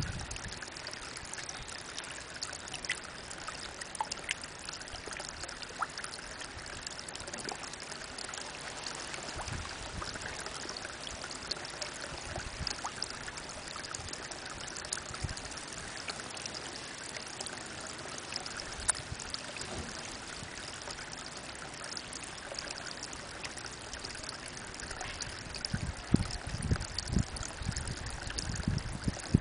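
Spring water falling in a thin stream into a pond: a steady splashing trickle with scattered small drips. A few louder low bumps near the end.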